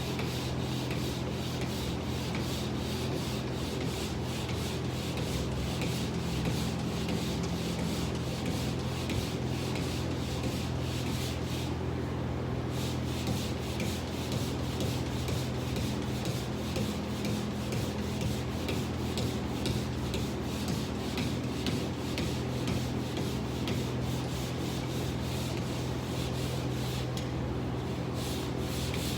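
Pole sander's sandpaper rubbing back and forth over a surface in quick, steady strokes, pausing briefly twice.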